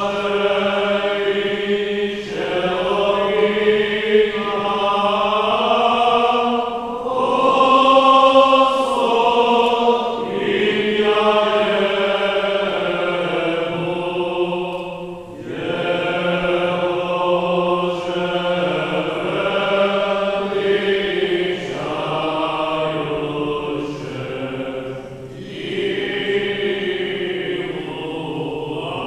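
Byzantine-rite liturgical chant: voices sing long, drawn-out phrases of the wedding service, pausing briefly between phrases every few seconds.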